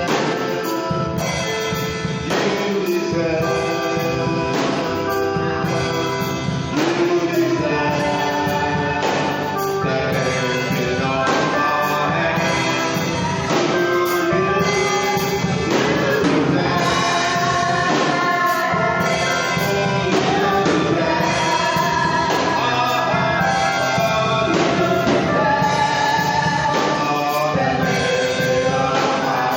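Gospel music: voices singing together over a steady drum beat.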